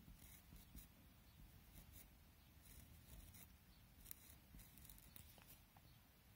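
Faint scratching of a pencil tip on paper in short, irregular strokes, as small outlines are drawn around painted dots.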